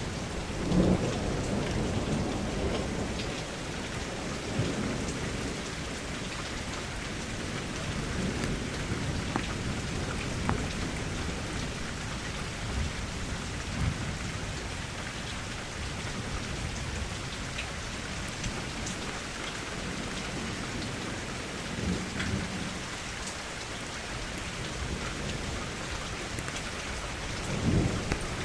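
Thunderstorm: steady rain with low rumbles of thunder that swell and fade several times, the strongest about a second in and near the end.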